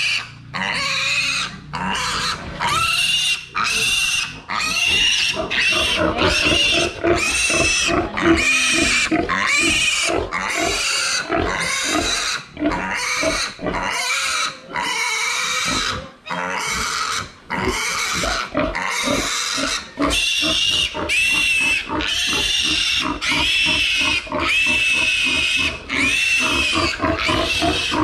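A piglet held upside down by its hind legs squealing in distress during castration: loud, high-pitched squeals, each rising and falling in pitch, repeated about once a second with only brief pauses.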